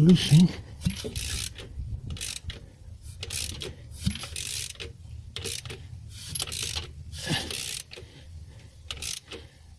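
Ratchet wrench clicking in repeated, uneven strokes as the Ford Focus 1.6 petrol engine is turned over by hand through a complete revolution, with the new timing belt and pulleys going round. This is the check that the timing lines up again after the belt change.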